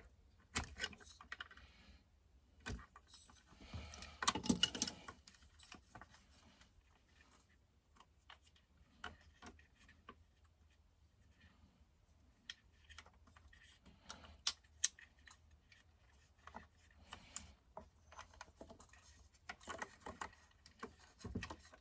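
Scattered clicks and clinks of hand tools and small metal chainsaw parts being handled during a teardown, with a louder, denser rattle about four seconds in.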